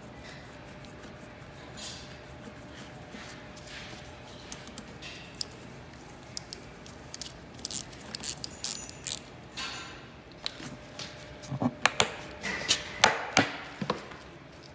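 Small metal clicks, clinks and knocks from hand tools and a bolt as the front fuel-tank mounting bolt is driven in with a nut driver. The clicks come in quick clusters, thickest in the second half.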